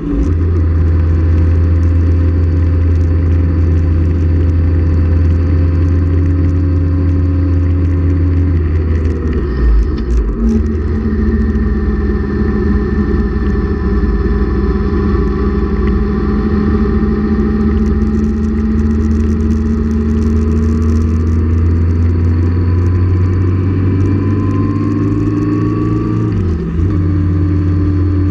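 Motorcycle engine running steadily under load, heard from on board with road and wind rush. About ten seconds in a downshift raises the engine pitch, and near the end the engine note briefly dips before picking up again.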